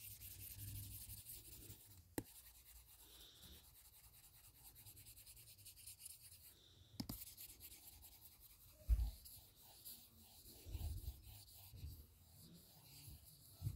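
Faint rubbing and scratching of drawing strokes on a touchscreen, with a few sharp taps and a low thump about nine seconds in.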